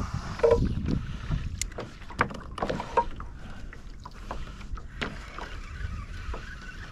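Small scattered clicks and knocks from handling fishing gear aboard a sit-on-top kayak, over a low rumble of wind and water on the microphone.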